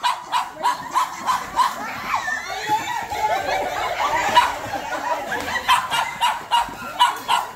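A dog barking over and over, about three barks a second, easing off in the middle while people laugh and children chatter, then barking again near the end.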